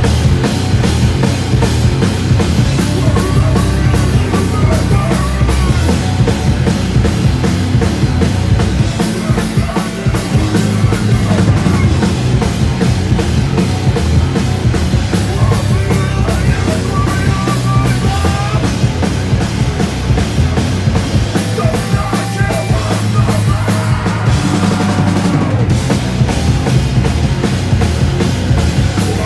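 A live rock band playing loudly, with the drum kit prominent over the bass and guitars in a fast punk-rock passage.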